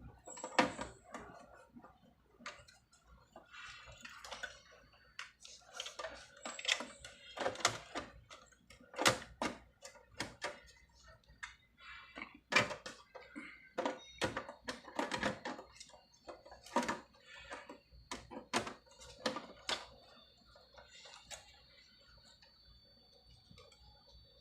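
Irregular clicks, knocks and light metallic clatter of a desktop computer's sheet-metal side panel being handled, refitted and latched shut. A faint steady high whine joins about halfway through.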